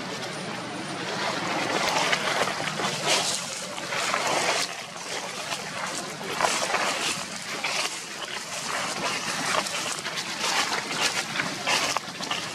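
Dry fallen leaves rustling and crackling underfoot, in irregular uneven bursts.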